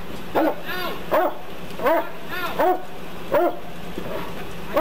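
Police K9 dog barking in a steady, repeated run, about one bark every three-quarters of a second.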